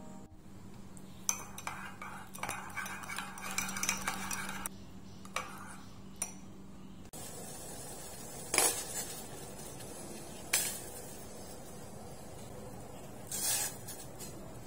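A metal spoon stirring and clinking in a ceramic mug as chili sauce is mixed. About seven seconds in, this gives way to a steady bubbling of water at a rolling boil in a steel pot, with three brief louder sounds.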